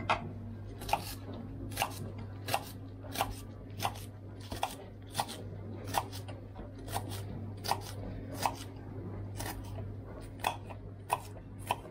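Kitchen knife chopping rhubarb stalks into small pieces on a wooden chopping board, a sharp tap with each cut at an even pace of about one and a half cuts a second.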